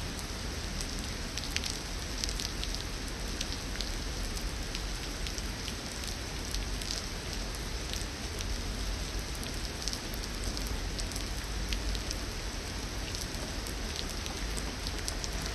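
Heavy rain falling steadily, with many sharp drop hits scattered through the constant hiss.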